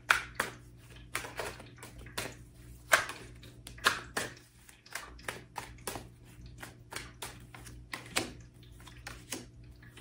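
A deck of tarot cards shuffled by hand: a run of irregular short card flicks and snaps, then cards dealt out onto a wooden table near the end.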